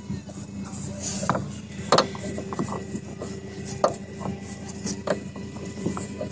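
Several sharp knocks and clicks of a plastic part being handled and pressed into a car door, the loudest about two seconds in, over a steady low hum.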